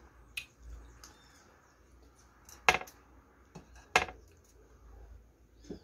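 Close-miked eating: sloppy joe meat filling being chewed, with a few sharp mouth clicks and smacks, the two loudest about a second apart near the middle.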